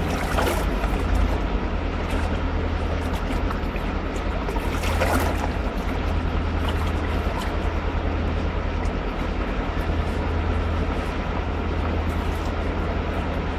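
Steady rush of a fast-flowing river running over stones, with a deep constant low rumble underneath.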